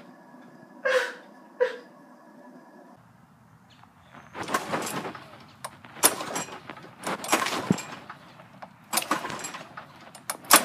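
Gas lawnmower's recoil starter being yanked several times, a run of irregular rough pulls with brief sputters, two short knocks before them.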